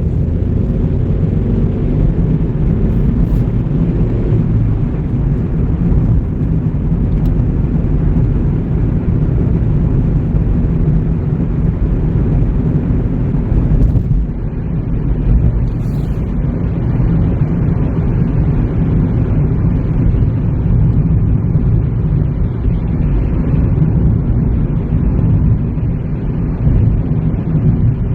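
A car driving steadily, a constant low rumble of engine and road noise. About halfway through, the faint upper hiss thins out.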